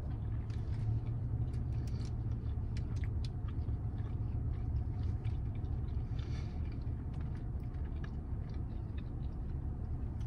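A person chewing a mouthful of sushi roll, with many small wet mouth clicks, over a steady low rumble inside a car.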